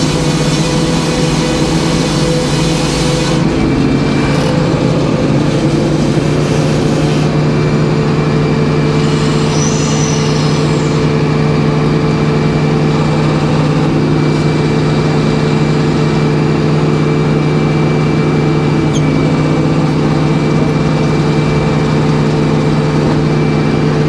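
Sawmill's power unit running steadily, driving the spinning circular saw blade with a constant low drone and no cut under way. A rushing hiss sits on top for the first few seconds, then stops.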